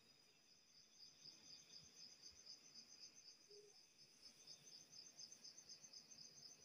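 Faint crickets chirping: a steady high-pitched pulsing trill, about four to five pulses a second.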